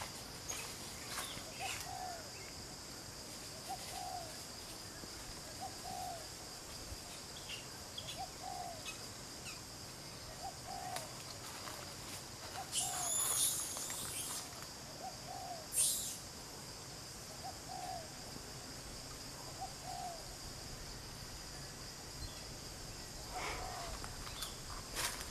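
A bird repeats a short, low hooting note about every two seconds over a steady high insect hum. Two brief shrill calls stand out around the middle.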